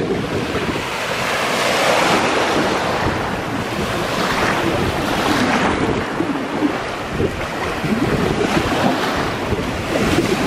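Small waves breaking and washing in over shallow water at the shoreline, the hiss of surf swelling in several surges. Wind buffets the microphone with a low rumble underneath.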